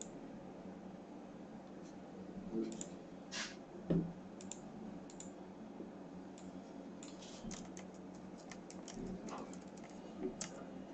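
Computer keyboard typing and clicking: scattered key and mouse clicks, then a quick run of key taps about seven seconds in as a search is typed. There is a soft thump about four seconds in.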